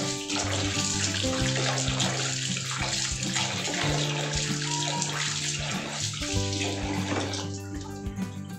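Tap water running into a stainless steel bowl while a hand stirs and rubs dried berries in it; the water shuts off near the end. Background music plays throughout.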